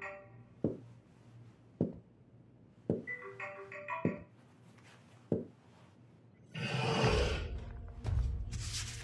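Suspense film score: a brief, quick motif of marimba-like mallet notes, heard twice, over deep falling thuds about once a second. Near the end come two louder swells of hiss-like noise.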